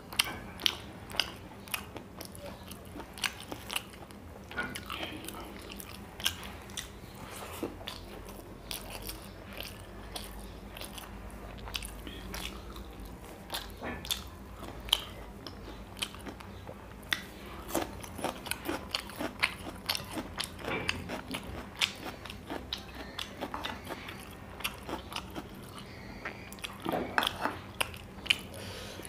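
Close-up chewing and crunching of a mouthful of rice and curry eaten by hand, with many irregular crisp clicks and mouth smacks.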